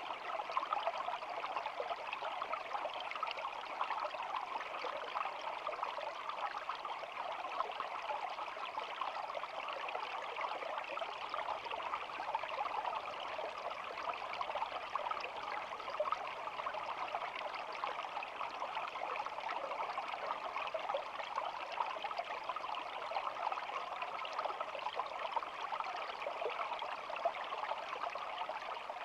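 Small shallow stream babbling, a steady, even rush of flowing water with no breaks.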